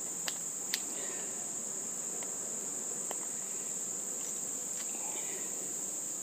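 A few faint, short metallic clicks as the brass CSST fitting's small parts are handled and pushed together in the fingers, two near the start and one about three seconds in. A steady high-pitched whine runs underneath.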